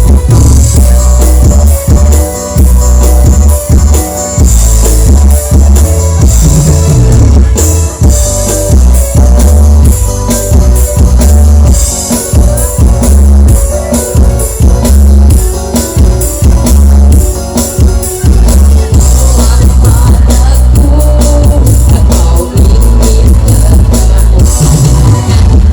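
Loud band music with a heavy bass and a drum beat, mostly instrumental.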